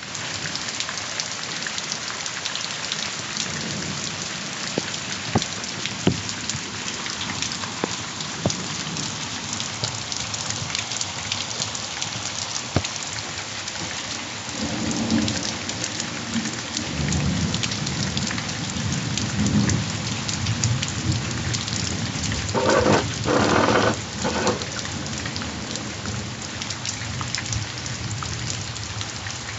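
Heavy, steady rain hissing down, with sharp drips tapping close by. Thunder rumbles low from about halfway through, and a few seconds later comes a louder burst.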